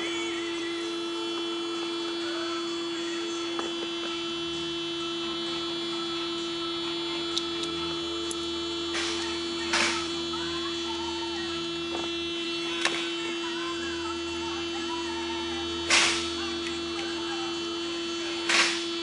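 Steady electrical-sounding hum, broken by three short hissing bursts, the loudest about two-thirds of the way in.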